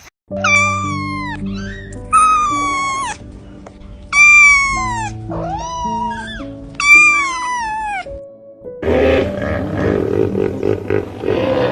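An animal's high, drawn-out calls, five of them each about a second long, rising briefly and then falling in pitch, over background music with slow held notes. A rougher, noisier animal sound takes over for the last few seconds.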